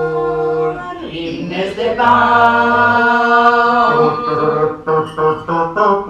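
Unaccompanied singing, with no instruments: a long held note from about two to four seconds in, then shorter notes near the end.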